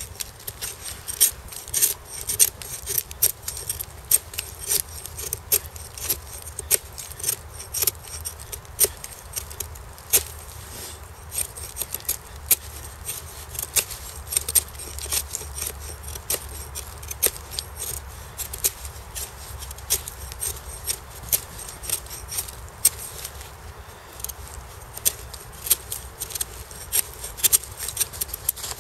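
Ka-Bar USN Mark 1 knife blade shaving a stick into a feather stick: repeated short scraping strokes of steel on wood, about two a second, each lifting a curl.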